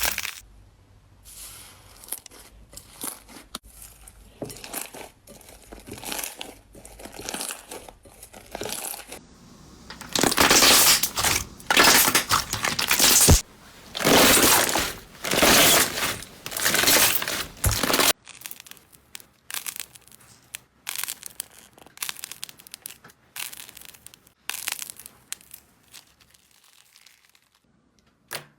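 Slime being squished, poked and pressed by hand: a series of short crinkling, crackling squishes. About halfway through comes a louder run of longer squishes, and after that a quieter stretch of sharp little pops and clicks.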